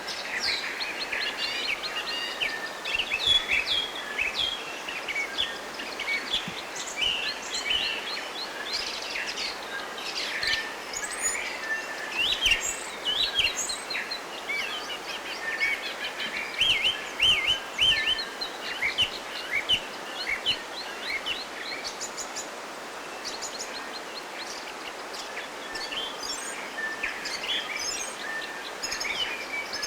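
Several forest birds singing, a dense overlapping chorus of quick chirps and trills, over a steady background hiss.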